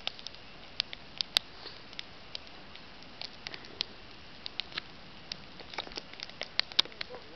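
Campfire crackling: burning wood giving off irregular sharp pops and snaps, a few of them loud, over a faint steady hiss.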